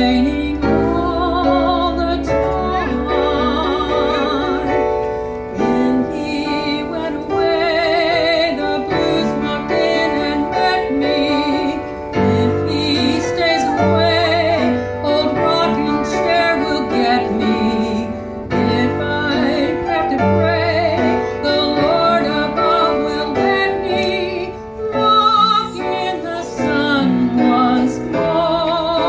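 A woman singing with vibrato on her held notes, accompanied by an upright piano.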